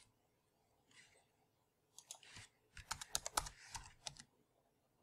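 Quiet computer keyboard typing: a quick run of keystrokes from about two to four seconds in, as new radius and contrast values are typed into the settings fields.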